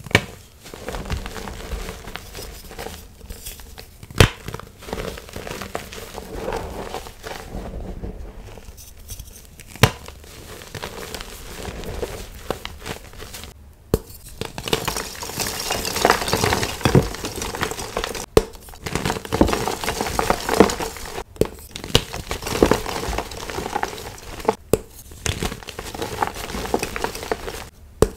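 Gym chalk crushed in bare hands: crunchy, dusty crumbling with a sharp snap now and then as pieces break. The crunching grows busier in the second half, where whole reformed chalk blocks are squeezed apart.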